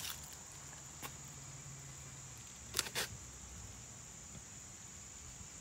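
Steady high-pitched insect chirring, like crickets, with a sharp click about a second in and two more close together near three seconds.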